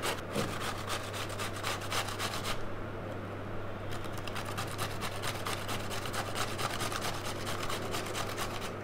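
Bottle gourd (lauki) being grated on a stainless steel box grater: quick, even strokes at about four a second, with a break of about a second around three seconds in.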